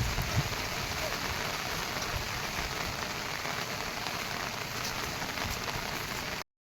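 Steady monsoon rain falling on surfaces, an even hiss with a few low thuds at the start. It cuts off abruptly to silence for a moment near the end.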